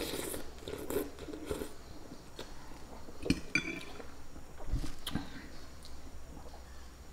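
A person slurping a mouthful of instant noodles, then chewing. About three seconds in comes a sharp clink with a brief ring, and near the end there are sips of water from a glass.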